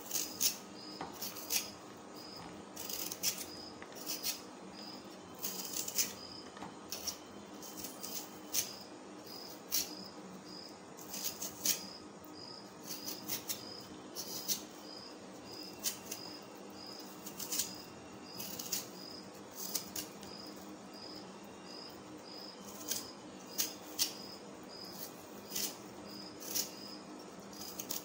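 A small kitchen knife scraping and shaving the skin off a raw potato in short, irregular strokes. A steady, regularly repeating high chirp, like a cricket, runs underneath.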